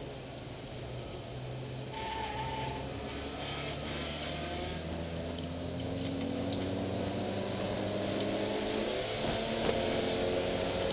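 BMW M20 straight-six engine of an E30 325iS, heard from inside the car, running under light load. About halfway through its pitch and loudness rise slowly as the car accelerates.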